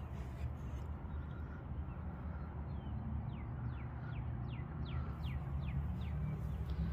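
A bird calls a quick run of about ten short falling notes, roughly three a second, over a steady low rumble.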